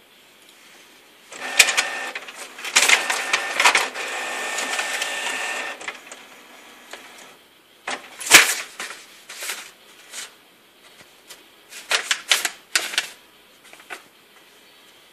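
Canon inkjet printer running for about five seconds, a steady mechanical whir with clicks as it feeds and prints, then paper crackling and rustling in short bursts as a cat paws and noses at the sheets coming out of it.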